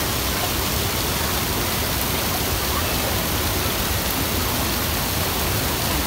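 Water from a broad, stepped waterfall pouring over several ledges, a steady, even rush.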